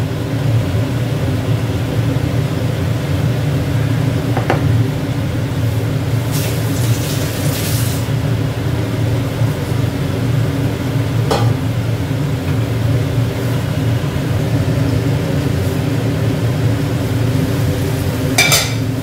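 A steady mechanical hum made of several even low tones, with a few light clicks and a brief hiss. Near the end, a spatula clatters in a kadai of frying potatoes and tomatoes.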